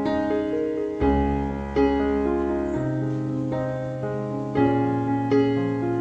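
Background piano music: a slow melody over held chords, with new notes struck every second or so.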